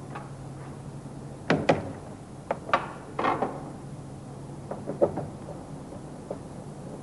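A run of sharp clicks and knocks, about a second and a half in and again near five seconds, as the plastic window winder crank handle on a VW Golf Mk1 Cabriolet's trim panel is worked off its spindle.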